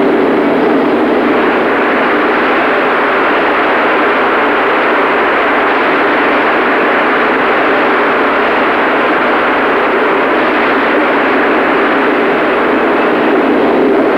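Large arena audience applauding and cheering in a steady, dense roar.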